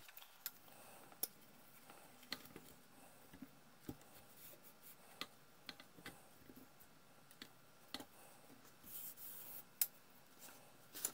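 Faint, irregular clicks and taps of a screwdriver working against the metal chassis of a Heathkit T-3 signal tracer as its bent frame is straightened, with a short rustle about nine seconds in.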